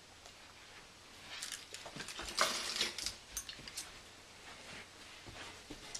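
A brief cluster of light clicks, clinks and rustling as tree ornaments are handled and hung, busiest about two and a half seconds in.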